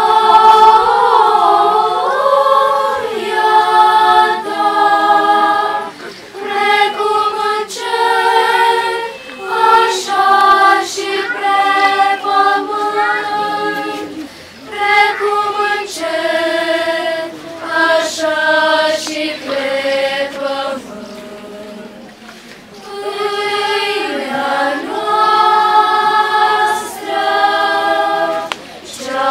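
Girls' choir singing unaccompanied, in several voices, with held notes and short breaks between phrases; the singing softens for a few seconds past the middle, then swells again.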